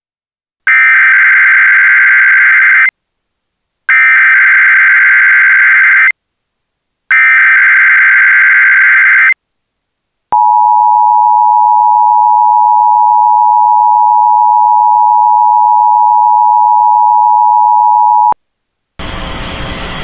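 NOAA Weather Radio Emergency Alert System alert for a tornado warning drill. Three harsh, buzzing SAME digital header bursts of about two seconds each play, evenly spaced. Then a steady, loud attention tone sounds for about eight seconds and cuts off abruptly.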